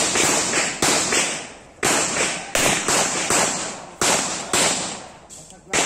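Handgun fired about ten times in quick succession, several shots in close pairs, each a sharp crack with a short echo trailing off.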